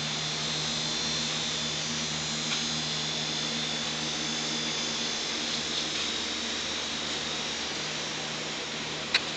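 A machine running steadily: a constant low hum under an even hiss, with one sharp click near the end.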